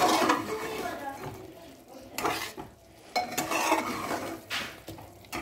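Chicken pieces in ginger-garlic paste being stir-fried on high flame in a pressure cooker pot, a utensil scraping the pot in several separate strokes over a sizzle. This is the bhuna (kasha) stage, frying off the water the chicken has released.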